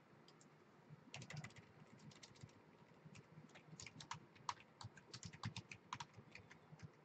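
Computer keyboard being typed on: a quick run of light key clicks, starting about a second in.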